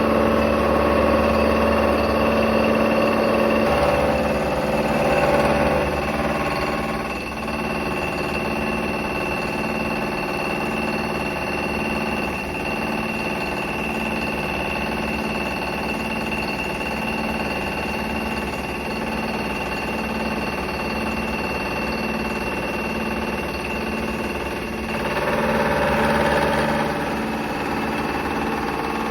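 CNC milling machine running while it mills a steel mould core: a steady spindle whine over a low hum with a regular pulsing, the tone shifting a few times as the cut changes.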